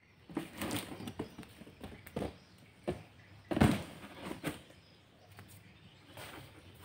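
Cardboard fan box handled and set down on a tiled floor: a run of light knocks and scrapes, with one heavier thump about three and a half seconds in.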